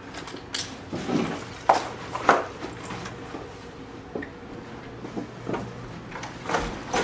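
Handling noises from a black bag being rummaged through and carried: scattered rustles and short knocks over a steady low room hum, the loudest knock near the end.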